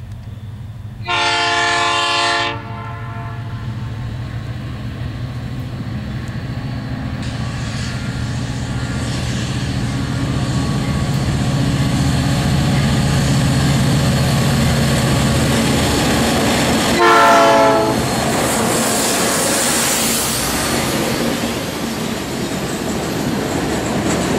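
Diesel freight train approaching and passing. A long horn blast comes about a second in, the locomotive's engine rumble grows steadily louder as it nears, and a second, shorter horn blast comes as it reaches the camera. Then the clatter and rolling noise of tank wagons going by on the rails.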